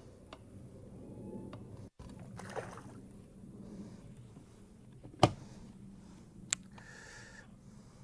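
Low handling noise with a sharp, loud knock about five seconds in and a lighter click a second or so later.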